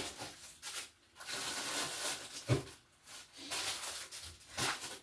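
Rustling and handling of kitchen items, with light knocks about halfway through and near the end.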